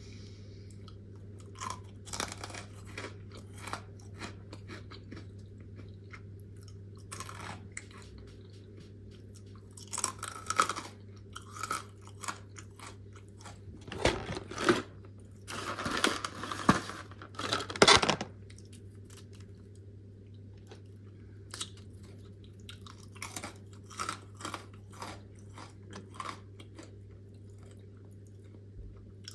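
Close-miked mouth sounds of someone biting and chewing crunchy freeze-dried fruit: irregular crisp crunches, with denser flurries through the middle. A faint steady low hum runs underneath.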